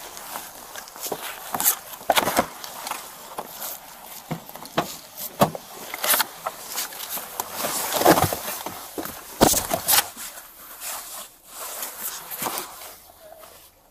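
Footsteps and the rustle and knock of clothing and gear against a body-worn camera, in an irregular run of knocks. The sharpest knock comes about two-thirds of the way in, and it goes quieter near the end.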